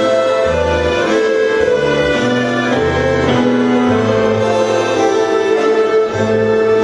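Instrumental music: held melody notes over a bass line that steps to a new note about every second.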